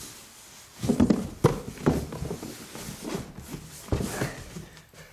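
Irregular thumps, knocks and rustling of a person clambering up out of a cardboard box, the loudest knocks about a second in and again near four seconds.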